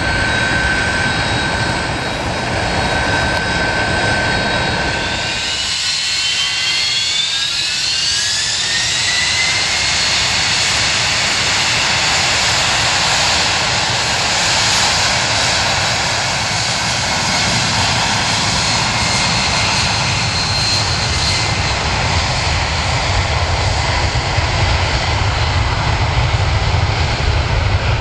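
Boeing 767's twin turbofan engines spooling up to takeoff thrust. About six seconds in, a rising whine settles into a steady jet roar, and a deep rumble grows near the end as the freighter starts its takeoff roll.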